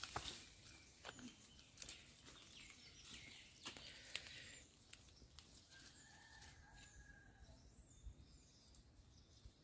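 Near silence outdoors: faint scattered clicks and rustles through the first half, then a faint drawn-out tone around six to seven seconds in.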